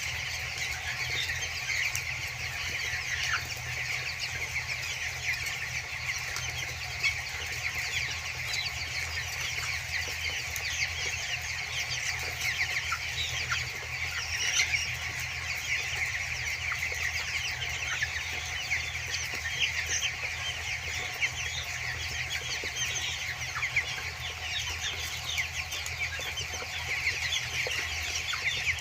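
A large flock of two-week-old broiler chicks cheeping continuously, many overlapping short chirps, over a steady low hum.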